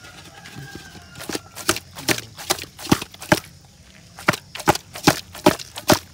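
Masala-coated fish pieces being tossed in a steel bowl, landing against the metal in a steady run of wet slaps, about two or three a second, with a short break just after the middle.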